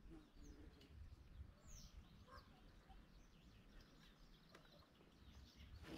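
Near silence, with a few faint bird chirps.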